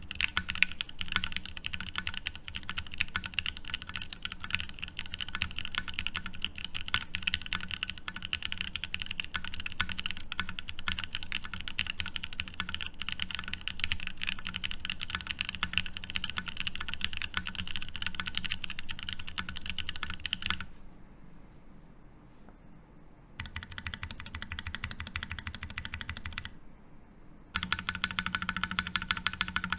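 Fast, continuous typing on a Savage65 mechanical keyboard with lubed Okomochi switches, an FR4 plate and GMK Tofu keycaps: a dense run of key clacks. The typing breaks off for a couple of seconds about two-thirds of the way in, and again briefly near the end, then resumes.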